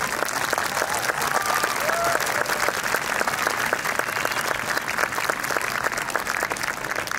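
Large audience applauding, with a few cheers over the clapping; the applause swells right at the start and then holds steady.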